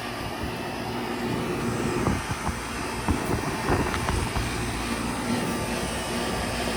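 Outdoor air conditioner condenser unit with a Copeland reciprocating compressor running steadily, its compressor hum under the condenser fan's airflow.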